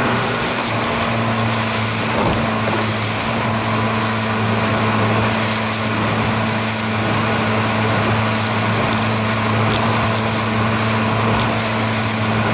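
Motorboat engine running steadily at a cruising speed of about 20 mph, a constant drone with the rush of wind and water over the hull.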